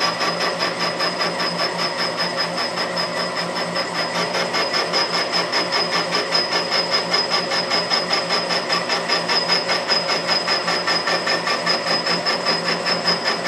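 Carbide cutting tool facing the Frick sawmill's loose saw collar as it turns on a belt-driven jig, truing the collar's contact face much like turning a brake rotor. A steady high whine over a regular pulsing about five times a second.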